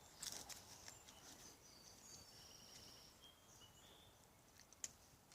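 Faint wild birdsong: scattered short, high whistled notes and chirps from several birds. A brief crackling rustle comes just after the start, and a single sharp click comes shortly before the end.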